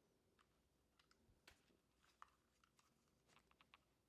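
Near silence with scattered faint clicks and taps, most around the middle and in a quick run of about five near the end: the magnetic phone mount being handled.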